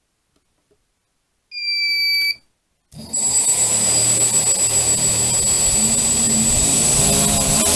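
A single high electronic beep of just under a second, then about three seconds in the tricopter's three motors and propellers spin up and keep running steadily with a high whine, on a bench test of a KK2.1.5 flight board that has been cutting out on throttle.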